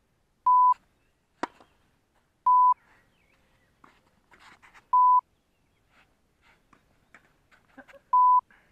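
Four short, loud 1 kHz censor bleeps at uneven intervals, each about a quarter second long. There is one sharp knock about one and a half seconds in, and faint scattered small sounds in between.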